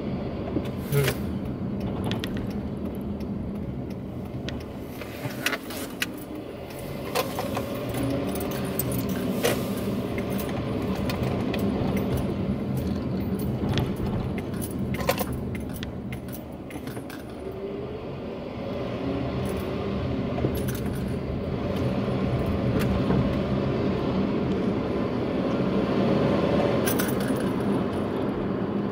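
Car cabin noise while driving: a steady low rumble of engine and tyres, with frequent light jingling clicks and rattles.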